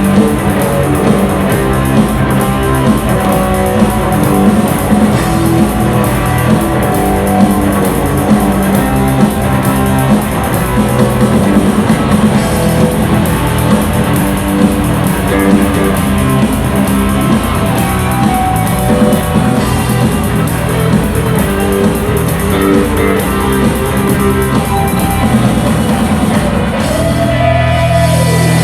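Live rock band playing an instrumental passage on guitars and a drum kit, with steady drum strokes under the guitars.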